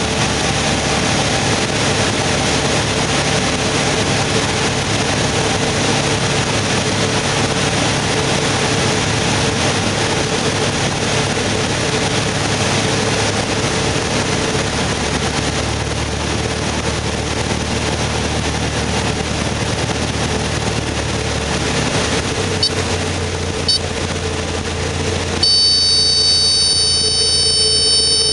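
Cabin noise of a single-engine light aircraft's piston engine and propeller, with airflow, running steadily through the final approach and landing. A couple of short knocks come near the end, then a steady high-pitched buzzing tone comes on in the last few seconds.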